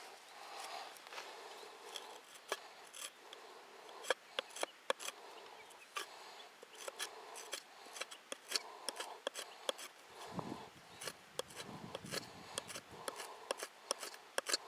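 Irregular sharp clicks and short scraping strokes of wood and a metal tool being worked by hand, with a low rumble for a few seconds past the middle.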